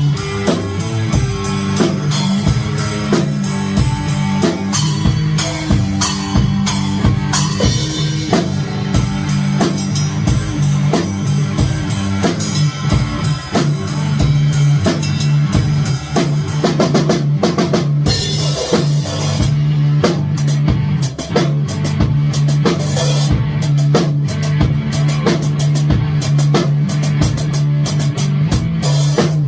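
Rock music with a drum kit keeping a steady beat over sustained low guitar or bass notes.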